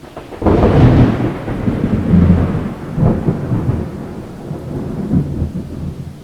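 Thunder rumbling: a sudden loud roll about half a second in, with further swells near three and five seconds, slowly fading.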